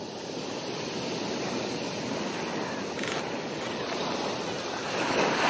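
Sea waves washing on a shore: a steady rush that swells near the end.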